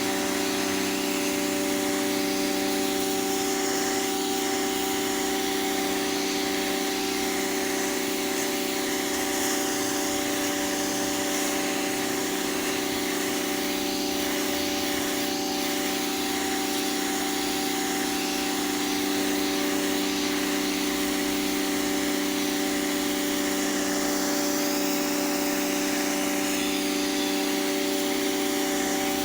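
High-pressure washer running steadily: a constant motor hum under the hiss of the water jet spraying the pavement.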